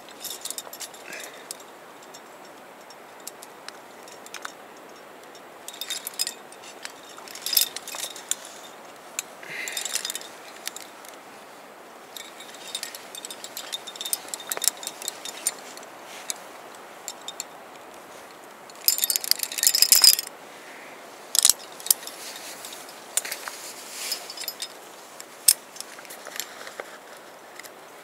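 Metal quickdraws and carabiners racked on a climber's harness jangling and clinking irregularly as the climber moves up the rock, with the loudest jangle about two-thirds of the way through.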